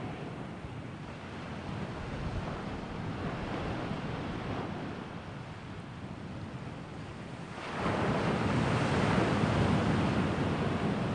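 Wind rushing over the microphone, a steady noise that swells now and then, with a stronger gust rising sharply about two-thirds of the way in.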